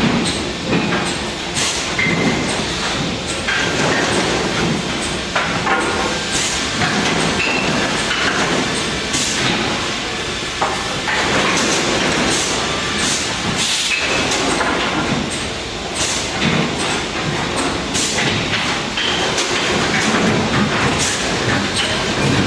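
MPCNC (Mostly Printed CNC) machine running a fast job: a steady mechanical noise with frequent clicks and rattles and short, high whines that come and go.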